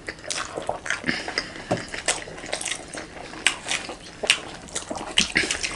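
Close-up mukbang eating sounds: many short, wet chewing clicks and lip smacks, and the squish of fingers mixing rice and daal on a plate.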